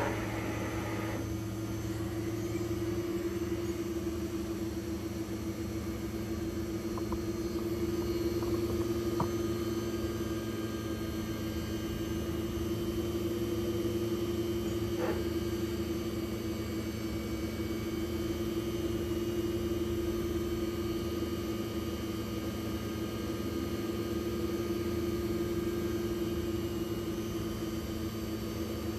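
Hardinge VMC-600 machining center's spindle running at its top step of 8,000 rpm, a steady machine hum with an even pitched tone that does not change.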